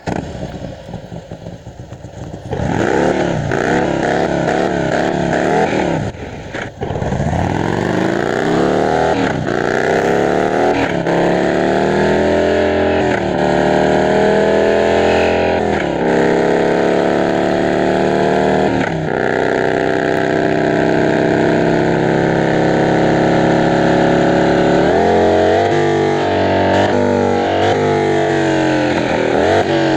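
Harley-Davidson motorcycle engine running and revved again and again, its pitch sweeping up with each blip of the throttle and sinking back toward idle. It grows much louder about two seconds in, with a steadier stretch in the middle.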